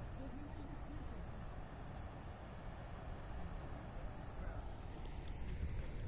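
Faint, steady outdoor ambience: an even soft hiss with a low rumble underneath, and no distinct event.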